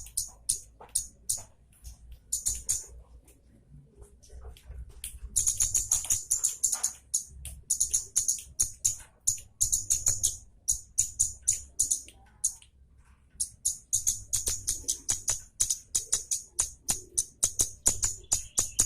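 Kemade (baret merah), a small honeyeater, singing in fast runs of sharp, high chips and chatter. There are short breaks about three seconds in and again about twelve seconds in.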